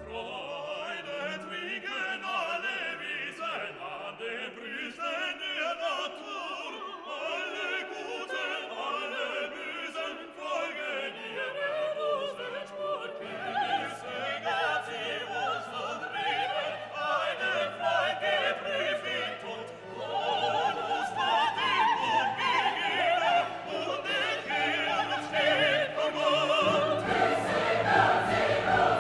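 Classical background music: opera singers and choir with orchestra, growing fuller and louder toward the end.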